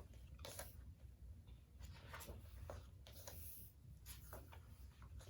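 Faint paper handling: a few soft, brief brushing swishes as the glossy pages of a K-pop album's photobook are turned and handled.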